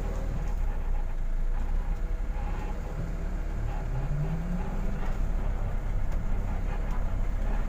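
Bus engine running with a steady low rumble of the ride over a rough dirt road, heard from inside the cabin. About three and a half seconds in, a tone rises briefly as the engine picks up.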